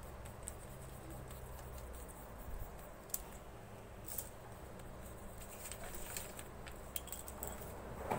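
Coloured pencil scratching across paper in short strokes, with a few light sharp clicks.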